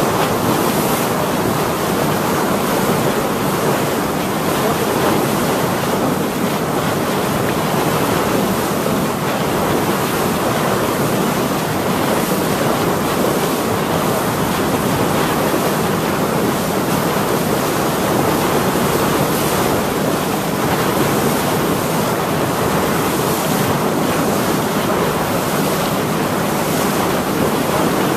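Wind buffeting the microphone over the steady wash of choppy water around a moving boat, a continuous rushing noise with small rises and falls.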